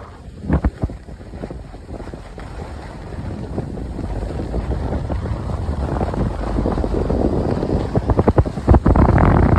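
Wind buffeting a phone microphone while sliding fast down a groomed ski slope, with the hiss of movement over packed snow. It is quieter at the start and builds steadily, with hard gusts near the end.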